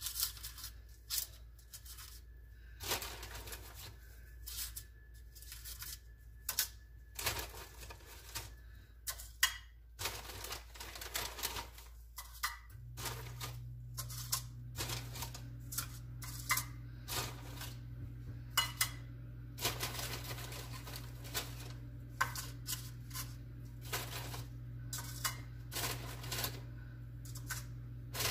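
Wafer cookies being dropped one by one into paper cupcake liners in a metal muffin pan: a run of light, irregular taps and clicks. About halfway through, a low steady hum comes on underneath.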